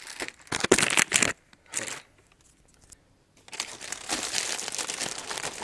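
Packaging being handled and crinkling: a few short rustles, a pause of about a second and a half, then steady crinkling.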